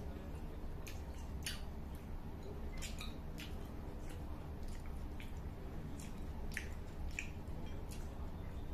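Eating chicken porridge: scattered wet mouth clicks and chewing, with a spoon scraping and stirring in a small metal bowl, over a steady low hum.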